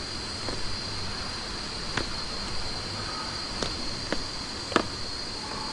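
Outdoor riverside ambience: a steady high-pitched insect drone over a low hiss, with a few sharp clicks scattered through it.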